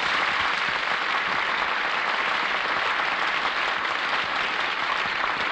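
Studio audience applauding steadily at the end of a song, heard on a 1949 radio broadcast recording.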